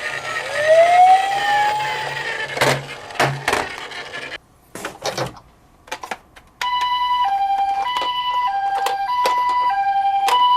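A wailing siren glides down and back up in pitch, followed by a few sharp clicks and knocks. From about six and a half seconds a two-tone hi-lo siren starts, switching between a higher and a lower note about every half second: the 'pee-poh' pattern of a Japanese ambulance siren, here from toy minicars.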